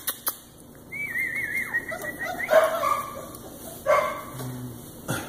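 Young puppies whining and yipping: a high, wavering whine about a second in, then short yips and little barks around the middle and again about four seconds in.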